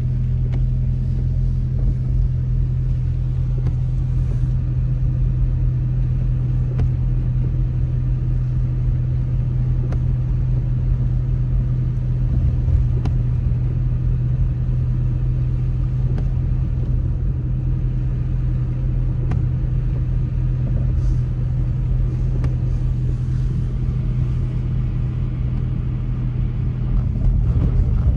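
Car driving at low speed, heard from inside the cabin: a steady low engine and road drone with a low rumble from the tyres, with no sudden events.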